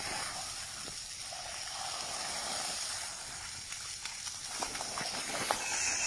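A water jet spraying up from the ground, with a steady hiss of falling water, and a few short splashes about five seconds in as a baby elephant steps through the puddle.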